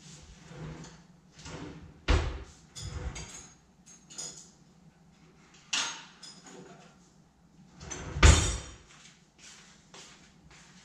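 A series of irregular knocks and bumps. The two loudest, deep thuds, come about two seconds in and about eight seconds in, with lighter clicks and taps between them.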